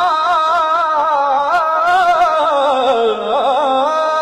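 A man singing a naat, an Urdu devotional song, holding one long ornamented note. The note wavers in quick vibrato, dips lower about three seconds in, then settles back onto a steady held pitch near the end.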